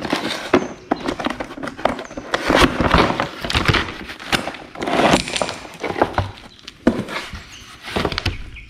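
Cardboard gasket-kit box being opened by hand and its contents pulled out: irregular rustling and scraping of cardboard and packaging, with scattered light knocks.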